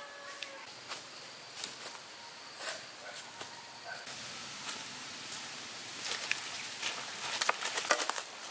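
Footsteps through dry leaf litter and twigs: scattered crackles and rustles that grow denser and louder near the end.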